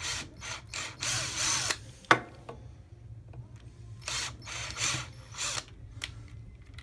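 Power drill run in short bursts with a larger bit, drilling the heads off the rivets of a diecast toy car; the longest burst comes about a second in and three shorter ones from about four seconds in, with a sharp click about two seconds in.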